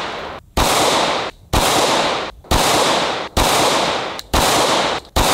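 9mm handgun fired six times at a steady pace of about one shot a second, each report trailing off for most of a second before the next.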